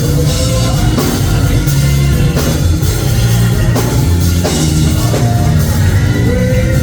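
Church band playing a driving song on drum kit and bass, with steady drum beats over a heavy bass line.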